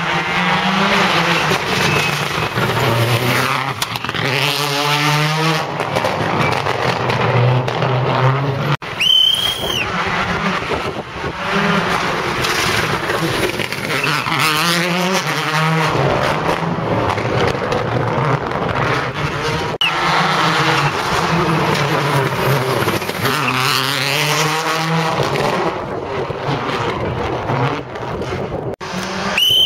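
Rally car engines screaming past at speed, one car after another, revving up and down through the gears with the pitch sweeping as each goes by. The sound breaks off abruptly a few times between passes.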